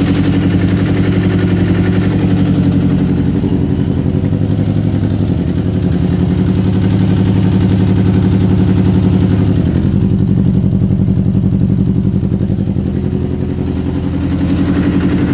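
Suzuki sport motorcycle engine idling steadily, its idle speed shifting slightly a couple of times.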